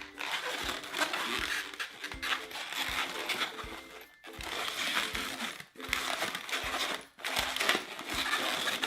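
A 260 latex modelling balloon being twisted into loops, rubbing and squeaking against the hands in stretches of a second or two with short pauses, over background music with a steady beat.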